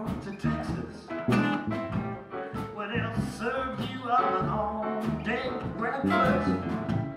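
Live blues band playing, with a strummed acoustic guitar and a melodic lead line over it.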